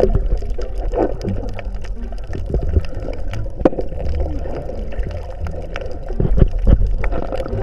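Water gurgling and sloshing close to the microphone, with many scattered sharp clicks and knocks, as during sea diving.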